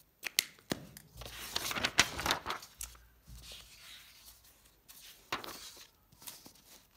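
Pages of a paper textbook being turned and rustled by hand, with several sharp clicks and taps among the rustling.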